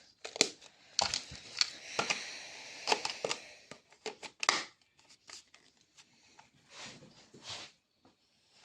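Plastic parts of a small handheld vacuum cleaner being handled and fitted together: scattered sharp clicks and knocks with rustling and crinkling, busiest in the first few seconds.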